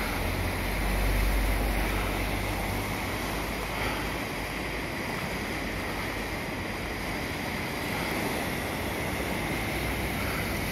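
Flood-swollen river running fast, a steady rush of churning water past a bridge. A low rumble of wind on the microphone adds to it in the first few seconds.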